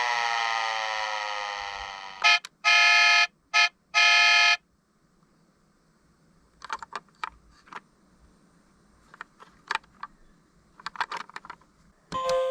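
Electronic emergency-vehicle siren winding down in a falling wail and fading out, followed by four beeps of one steady buzzy horn-like tone, short, long, short, long. After that come a scatter of faint clicks and taps.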